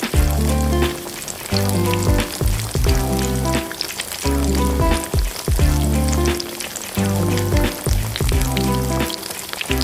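Pork sisig sizzling and crackling with fat on a hot cooking surface, over background music with repeating bass notes.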